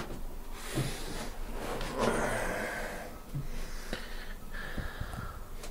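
A man breathing hard close to the microphone, two long heavy breaths, with a few light knocks and handling bumps as he moves about.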